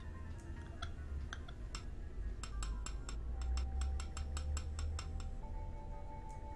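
Razor blade chopping white powder on a hard surface: a few scattered clicks, then a quick even run of about five taps a second that stops about five seconds in. Under it, low droning music, with a held note entering midway.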